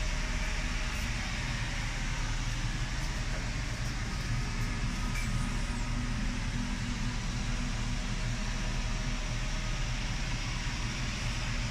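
Steady mechanical hum with an even hiss of moving air, unchanging throughout.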